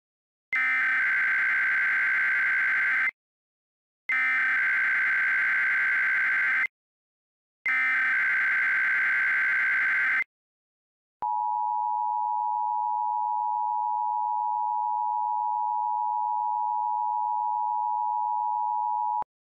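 Emergency Alert System broadcast opening: three screeching bursts of SAME digital header data, each about two and a half seconds with short gaps, then the steady two-tone EAS attention signal held for about eight seconds before it cuts off.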